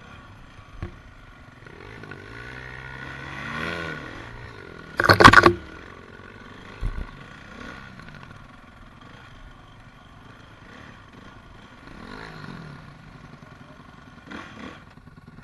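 Honda CRF four-stroke dirt bike engines running at low speed on a climb, their pitch rising twice as the throttle is opened. A loud, brief burst of noise comes about five seconds in, with a few light knocks and clatter.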